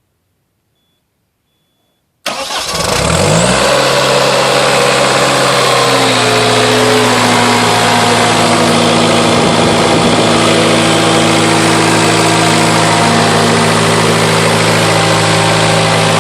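Silence for about two seconds, then the Caterpillar 247B skid steer's diesel engine starts, spins up within about a second and settles into a steady run.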